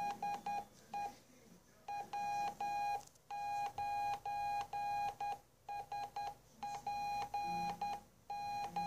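Morse code (CW) tone, a single steady beep keyed on and off in short dits and longer dahs at a slow speed of about 11 words per minute. It is an amateur radio test call, 'CQ CQ DE W9SPY TEST', sent on the 40 metre band.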